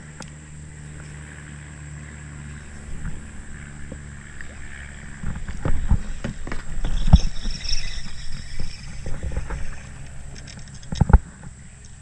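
Handling noise from a spinning rod and reel worked right beside the camera in a kayak: a quiet steady rumble for about five seconds, then a run of knocks, bumps and rubbing, with the two loudest thumps about seven and eleven seconds in.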